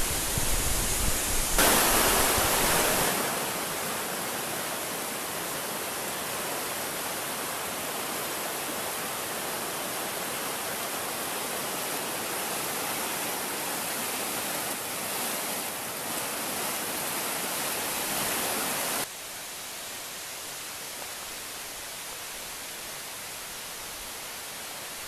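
Shallow woodland stream rushing over rocks: a steady wash of water noise, louder for a moment about two seconds in. It drops off abruptly about 19 seconds in to a fainter steady hiss.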